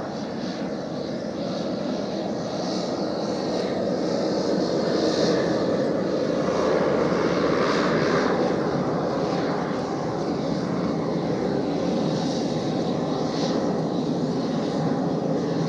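Pilatus PC-12's single Pratt & Whitney Canada PT6A turboprop engine and propeller running as the aircraft rolls out along the runway after landing: a steady turbine-and-propeller drone that swells a little partway through.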